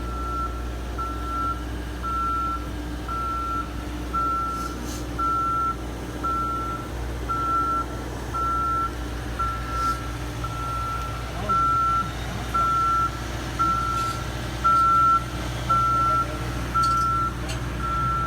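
Motion alarm of a boom lift beeping steadily about once a second while the boom is moved, over the low hum of the lift's running engine.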